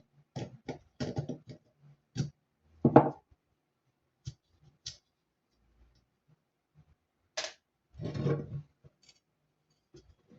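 Irregular clicks and knocks of hard blender parts being handled and worked on, about a dozen in all, the loudest a little under three seconds in, with a longer rustling scrape about eight seconds in.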